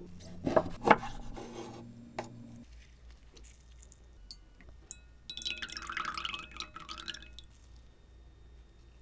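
Raw sea cucumber and spoon worms handled on a wooden board and over a glass bowl. A few sharp wet slaps and knocks come in the first two seconds, then about two seconds of wet squelching, with liquid dripping and trickling into the glass bowl.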